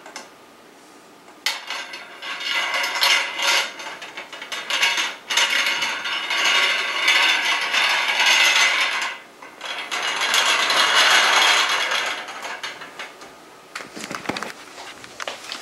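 Metal wire shelf being worked down onto grooved metal shelving posts, rattling and scraping with rapid ratchet-like clicking in three long stretches, then a few lighter clicks near the end.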